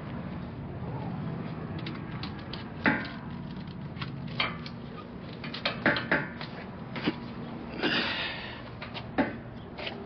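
Sharp metallic clicks and knocks from a strap and its hardware being worked at a semi-trailer's rear bumper, about seven spread irregularly, with a longer rattling scrape about eight seconds in, over a steady low hum.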